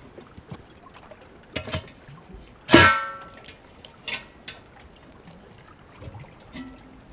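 Cast-iron Dutch oven handled by its steel wire bail handle: a few light knocks, then one sharp metal clank a little under three seconds in, ringing briefly before it dies away, followed by a lighter clink.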